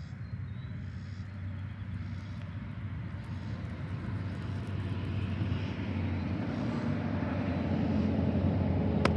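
Engine drone, steady and low, growing gradually louder as it approaches, with a sharp click just before the end.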